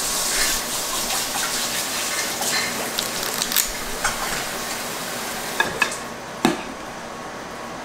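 Butter sizzling with a steady hiss on a hot electric griddle as pancake batter is scooped onto it. A metal spring-lever batter scoop gives a few sharp clicks against the bowl and griddle in the second half, and the hiss thins out near the end.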